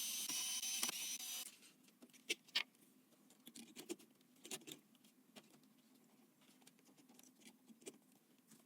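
A small electric motor whirring steadily with a whine, stopping about a second and a half in. Then a string of sharp clicks and taps of parts being handled, the loudest a double tap about two and a half seconds in.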